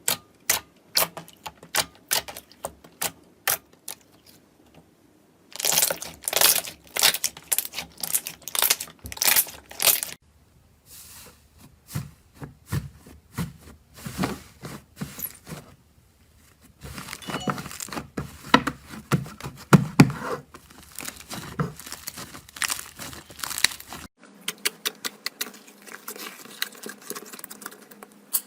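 Slime being squished and pressed by hand, making runs of sharp crackling and popping clicks. The texture of the clicks changes several times as one short clip gives way to the next.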